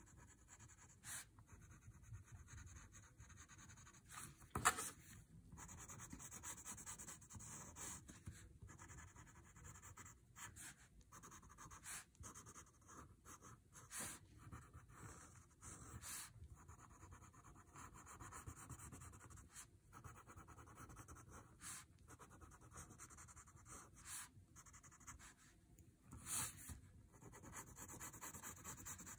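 Faint scratching and rubbing of graphite shading being worked onto a paper drawing tile in short, irregular strokes. There is a sharper tap about five seconds in.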